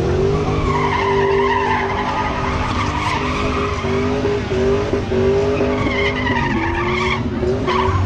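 Pontiac Firebird V8 held at high revs in a burnout, rear tyres spinning and squealing. The revs climb into it at the very start, dip briefly about six and a half seconds in, and drop off near the end.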